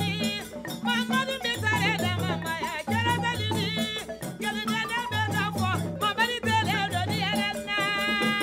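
Background music: a song with a singing voice over a repeating bass line and fast, steady shaker-like percussion.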